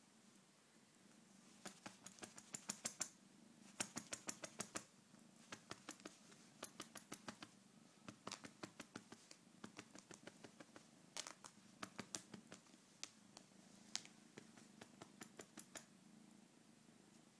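Kitten purring faintly, with several runs of quick sharp clicks, each lasting about a second.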